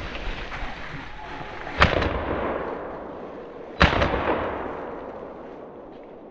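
Shotgun fired twice, about two seconds apart, at a rabbit. Each shot is a sharp, loud crack that echoes and fades over a couple of seconds.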